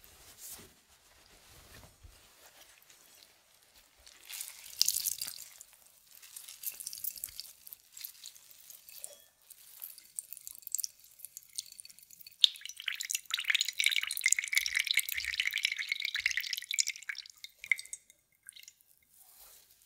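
Cucumber juice dripping and trickling into a bowl as grated cucumber is wrung out in a cotton kitchen towel, with the cloth rustling and squelching. The dripping is heaviest and loudest in the second half, then stops shortly before the end.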